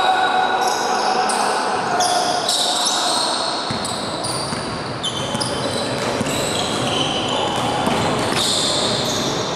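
Basketball game on an indoor hardwood-style court: the ball bouncing, with many short high squeaks from sneakers on the floor and players' voices, all echoing in a large gym hall.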